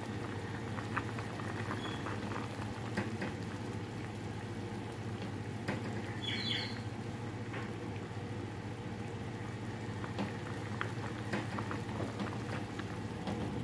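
A pot of vegetable soup boiling on a stove: steady bubbling with scattered small pops over a low hum. A brief high squeak sounds about six seconds in.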